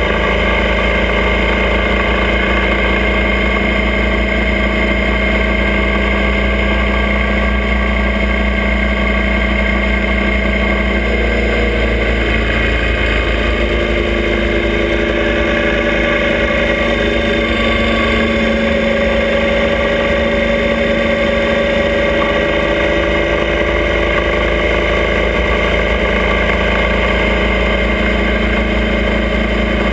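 Motorcycle engine of a sidecar outfit running steadily under way, its pitch easing down a little about halfway through and climbing back later, over steady road and wind noise.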